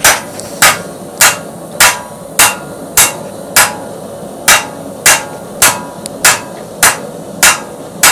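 Steady hammer blows from a 2.5 pound rounding hammer drawing down hot steel on an anvil, about fourteen strikes at a little under two a second, each with a short metallic ring.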